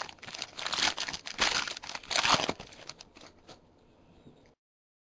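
Trading card pack wrapper being torn open and crinkled by hand, in a run of irregular crinkles over the first three seconds or so.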